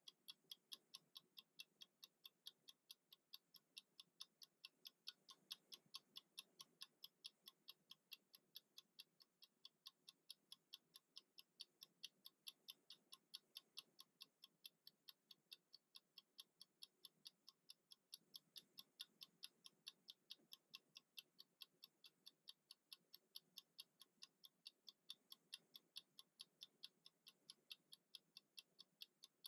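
Mechanical 60-minute kitchen timer ticking faintly and evenly, about four ticks a second, as it counts down.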